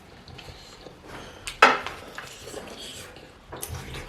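Eating utensils knocking against a dish, with one sharp clack about a second and a half in, a lighter one near the end, and small clicks between.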